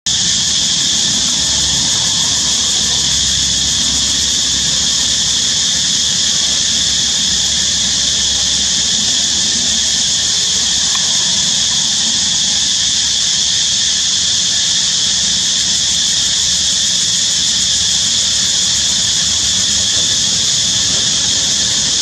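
Steady, loud, high-pitched hiss that does not change, with a faint low rumble beneath it.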